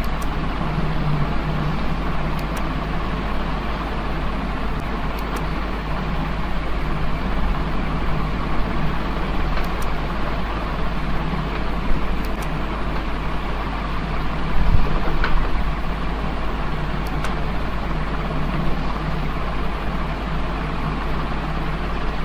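Steady background hiss with a constant low electrical hum, and a few faint clicks scattered through it.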